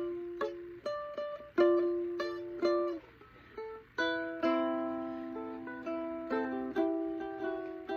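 Ukulele being plucked: single notes and chords that ring and fade, with a short pause about three seconds in, then a chord left to ring for about two seconds.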